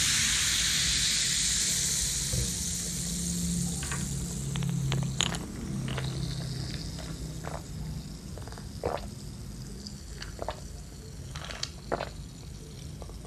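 A dark fizzy drink in a plastic cup, its fizz loud at first and fading over the first few seconds. This is followed by a string of separate gulps and mouth clicks as it is drunk.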